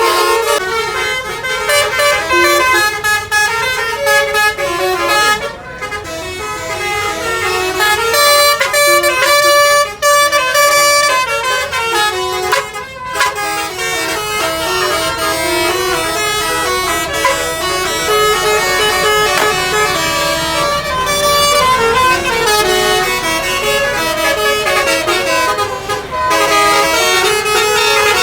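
Several buses' telolet basuri horns, multi-tone air horns, playing short tunes over one another almost without pause, with two brief breaks.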